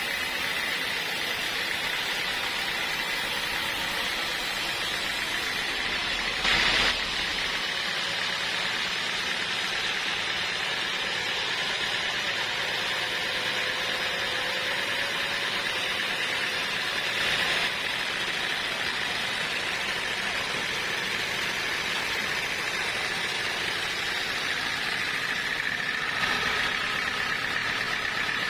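A machine running steadily, with a constant high whine over a noisy hum. Twice it briefly gets louder, about seven and seventeen seconds in.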